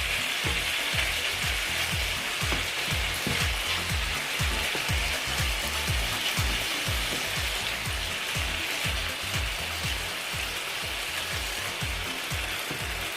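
Chicken strips in a lemongrass marinade frying in hot oil in a pan: a steady sizzle, easing slightly toward the end, with a run of low knocks a few times a second underneath.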